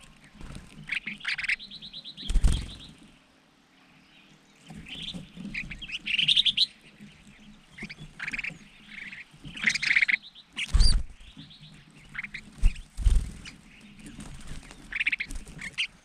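Crested finchbills chirping and chattering, many short calls overlapping from several birds. A few loud thumps of wing flaps are heard as birds flutter close to the microphone.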